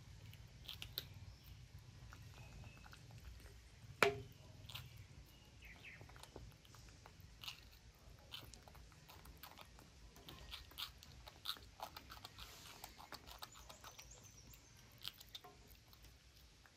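Baby macaques faintly chewing and biting green vegetables, with many small scattered mouth clicks and one sharper click about four seconds in.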